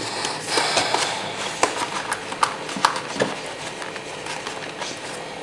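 Plastic keycaps clicking and clattering against each other and their box, with some rustling of packaging, as they are packed away: irregular light knocks, busiest in the first couple of seconds.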